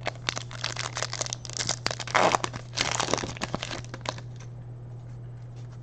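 A foil trading-card pack wrapper torn open and crinkled by hand: a dense run of crackling and tearing with sharp snaps for about four seconds, then quieter rustling as the cards are handled.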